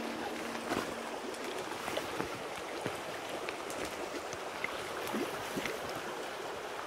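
A small rocky stream running steadily, with scattered faint splashes and ticks in the water.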